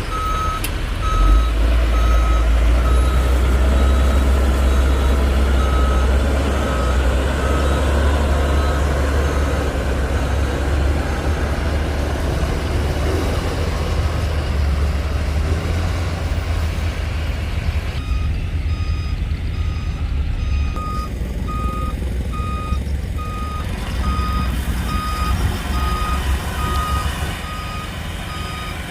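Heavy diesel construction vehicle running with a deep engine rumble while its reversing alarm beeps at a regular pace. The beeping stops for several seconds midway, then resumes, as the machine backs up again.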